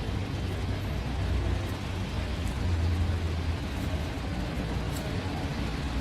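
Road traffic on wet streets: a steady hiss with a low vehicle engine rumble that swells about three seconds in, as a car or bus passes.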